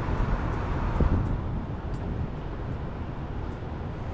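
Steady rushing outdoor noise, mostly wind buffeting the microphone, with a single low thump about a second in.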